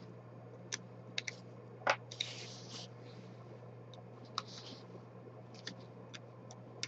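Small knife blade scraping and picking at a 3D-printed plastic part to clean off support material: scattered faint clicks and two short soft scrapes over a low steady hum.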